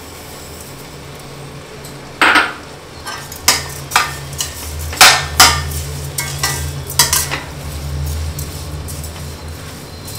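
Slotted steel spoon stirring thick chutney in a stainless steel pot, scraping and clinking against the metal in irregular strokes that start about two seconds in, over a low steady hum.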